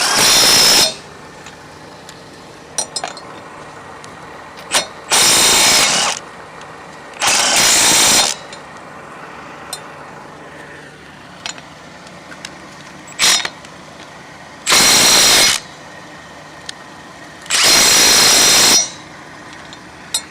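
Milwaukee M12 Fuel Stubby 1/2" cordless impact wrench (2555-20) hammering in five bursts of about a second each, with a few brief blips of the trigger between them, as it works on lug nuts.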